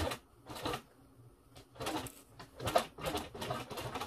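Walking-foot sewing machine starting to stitch leatherette about two seconds in, running slowly and unevenly.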